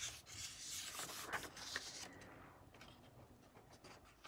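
Paper pages of a thin colouring book being turned, rustling and brushing against each other, busiest in the first two seconds and softer after.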